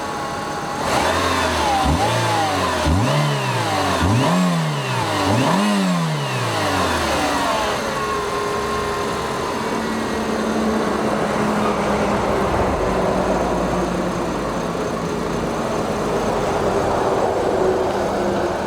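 Renault Clio RS 2.0's four-cylinder engine, a freshly replaced engine assembly, blipped through about four quick revs about a second apart, then settling into a steady idle for the rest of the time.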